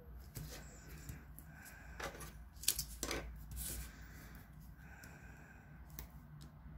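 Narrow masking tape being pulled off its roll and pressed along the edges of a card piece, with paper handling sounds. There are a few short crackles and clicks about two to four seconds in.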